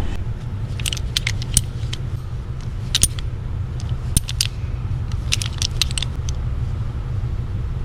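Metal hand tools clinking and clicking in short scattered clusters as a torque wrench is readied, over a steady low rumble.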